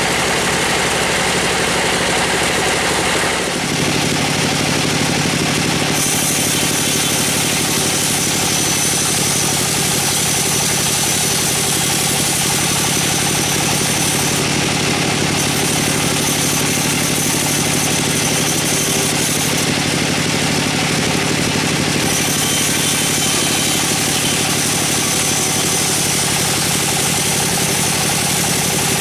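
Engine running steadily, its tone changing about three and a half seconds in and then holding.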